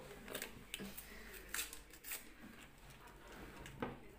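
Faint crinkling of a small paper sachet being handled and tipped over a bowl of flour, with several short, sharp crackles.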